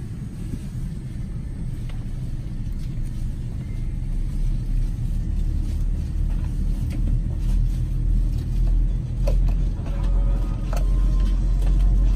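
Low, steady rumble inside the cabin of a Boeing 787-9 airliner during pushback, growing louder about four seconds in and again near the end.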